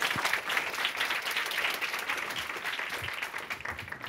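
Audience applauding, the clapping tapering off near the end.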